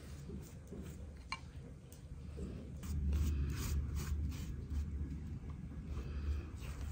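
Pastry brush dabbing and stroking egg wash onto raw dough on a metal baking tray: soft repeated brushing strokes, busier from about halfway in, over a steady low hum.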